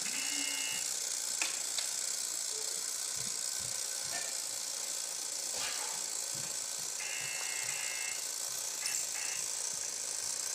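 Operation board game's buzzer going off in short buzzes as the metal tweezers touch the edge of a cavity, the game's signal of a miss: one buzz at the start, a longer one about seven seconds in, and two brief ones around nine seconds, over a steady hiss.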